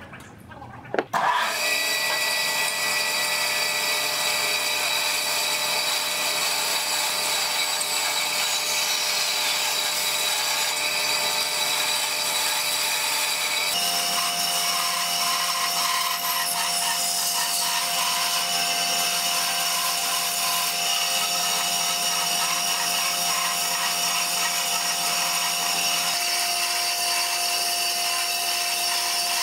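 Band saw running and cutting curves through a thick wooden block: a steady motor whine under the rasp of the blade in the wood. It starts abruptly about a second in, and its tone shifts suddenly twice, about halfway and again near the end.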